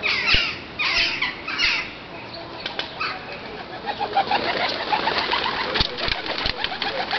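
Garden birds calling: a run of quick, descending chirps in the first two seconds, then quieter, busier chattering calls with a few sharp clicks.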